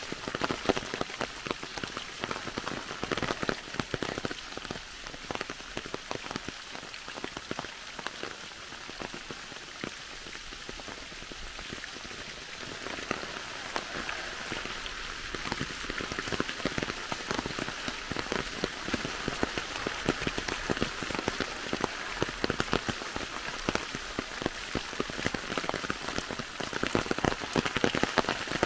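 Steady rain falling through the trees onto the leaf-covered forest floor: an even hiss with a dense scatter of separate drop hits, growing a little louder near the end.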